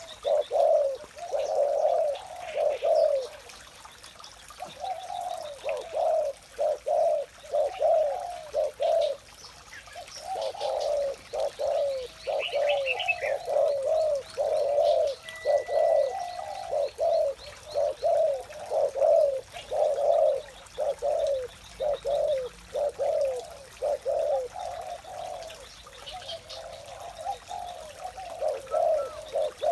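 Spotted dove cooing over and over in quick runs of low notes, with faint high chirps of small birds in the background.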